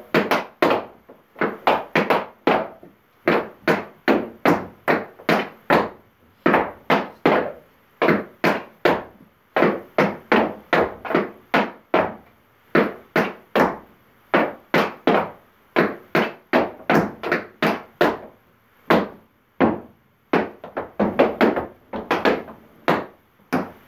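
Tap shoes striking a dance board in a steady run of sharp taps, about two to three a second with brief gaps: a teacher and a young pupil dancing tap steps and shuffles together.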